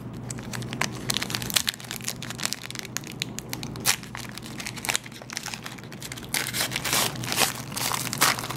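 Foil trading-card pack being torn open and its wrapper crinkled in the fingers: a dense run of sharp crackles, busiest near the end.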